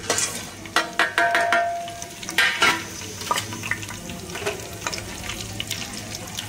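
Whole spices (bay leaf, cinnamon, cloves, cumin, black peppercorns, cardamom, mace) dropped into hot oil for a tempering: the oil starts sizzling at once and keeps crackling with many small pops, while a utensil knocks and stirs in the pan, loudest about a second in and around two and a half seconds in.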